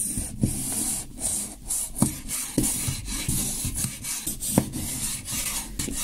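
Knife cutting through a rolled paper fuse tube on a wooden cutting board: a repeated rasping scrape of the blade, with a few sharp knocks of the blade against the board.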